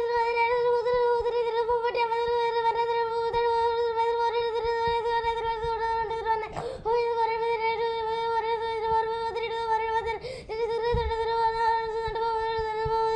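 A boy counting numbers aloud at extreme speed in a single high monotone, the words blurring into one continuous, nearly unbroken drone. He breaks off briefly for breath about halfway through and again later.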